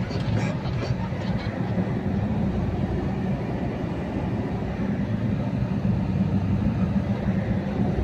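A moving vehicle's engine and tyre noise heard from inside the cabin: a steady low rumble.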